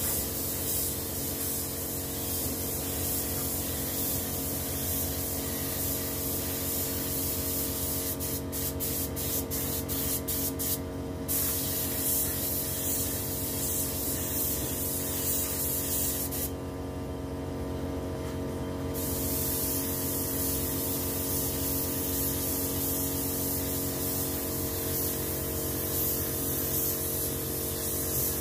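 Steady hiss of a gravity-feed compressed-air spray gun spraying paint. The spray flickers on and off shortly before the middle and stops for about two seconds a little past it, as the trigger is released. A steady hum runs underneath.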